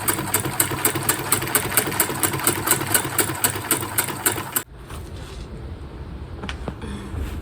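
Domestic sewing machine running steadily while free-motion stitching, its needle strokes coming about five a second. It stops suddenly a little over halfway through, leaving a low background hum and a couple of faint clicks.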